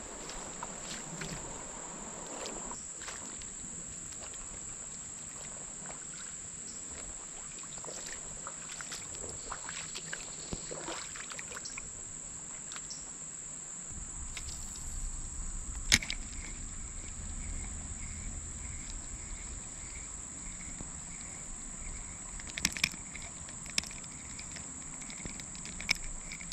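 Steady high-pitched insect drone, with scattered clicks and knocks. A low rumble comes in about halfway through, and a sharp knock just after it is the loudest sound.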